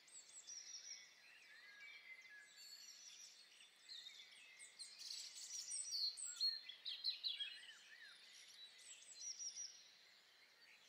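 Faint chirping and twittering of small songbirds: many short, quick calls, busiest in the middle stretch.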